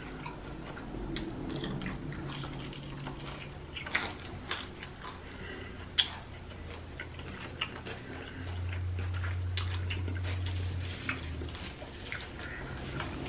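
Close-miked eating of fried chicken drumsticks: chewing, with scattered sharp mouth smacks and clicks. A low steady hum runs for about two seconds, a little after halfway.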